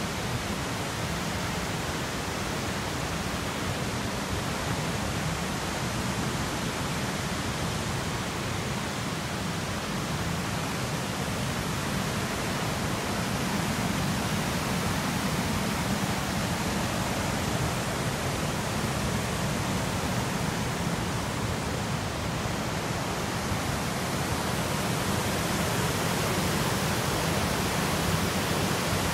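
Steady rushing of a river pouring over low rock falls and rapids, growing a little louder toward the end.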